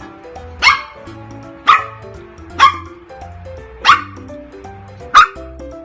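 Shih tzu puppy barking, five short sharp barks about a second apart, over background music.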